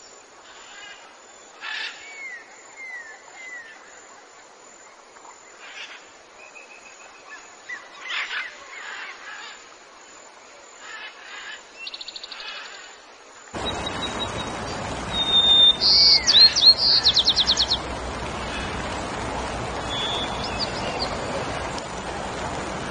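Small wild birds chirping and calling: short thin downward whistles, scattered chirps and brief trills. About halfway through, a steady rushing background noise sets in, and the loudest calls follow: a quick run of rapidly repeated trilled notes.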